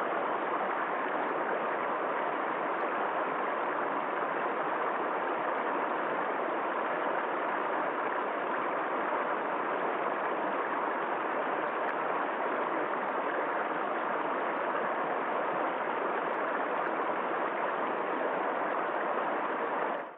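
River water flowing: a steady, even rush that does not change, fading away at the very end.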